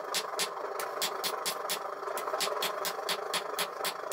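Hand hammer striking red-hot 5160 steel on an anvil in rapid, even blows, about five a second, forging a knife blade. A steady noise runs underneath.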